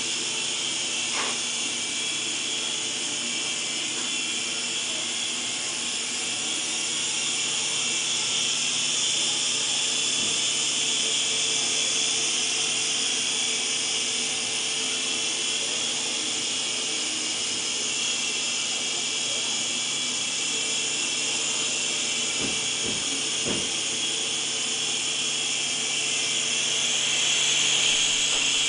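Small electric toy RC helicopter in flight, its motors and rotors making a steady high whirring hiss with a low hum underneath.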